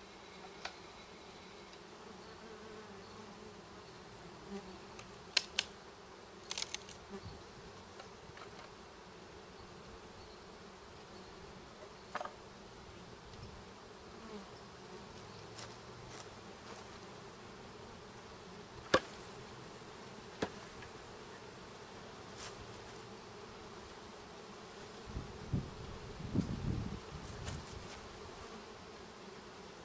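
Steady buzzing of thousands of package honeybees being installed into a hive, with a few sharp knocks and, near the end, some low bumping.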